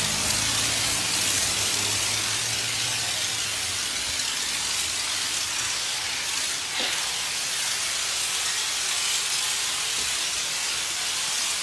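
High-pressure spray wand at a coin-operated self-service car wash, spraying steadily with a hiss. A low hum fades out about three seconds in.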